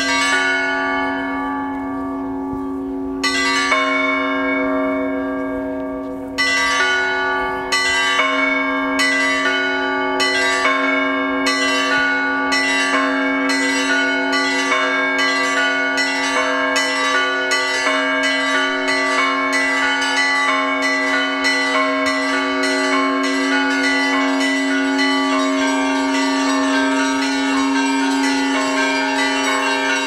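Russian Orthodox church bells rung by hand, several bells of different pitch. The strokes come a few seconds apart at first, then quicken from about eight seconds in to a fast, even pattern of two to three strokes a second, each stroke ringing on over the hum of the larger bell.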